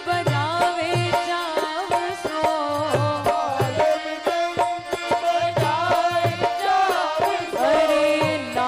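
Hindu devotional bhajan music: a melody with sliding ornaments over harmonium and a hand-drum beat.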